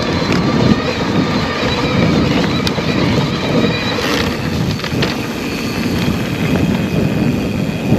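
Electric mountain bike being ridden along a gravel track: steady tyre noise over the gravel, mixed with wind buffeting the microphone.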